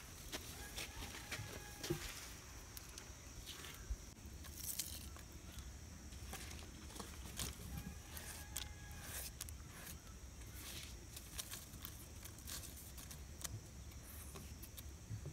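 Faint scattered clicks and light taps of chopped onion, green chillies and curry leaves being scraped off a wooden board and dropped onto raw fish pieces in a clay pot, over a steady faint high hiss.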